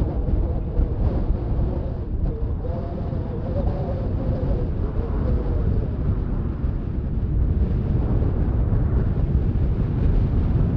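Distant rumble of T-50B jet engines from a pair of Black Eagles aerobatic jets flying overhead, under heavy wind buffeting on the microphone.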